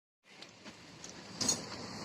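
Train coming along the track, its rumble rising in level with a few sharp wheel clicks from the rail joints.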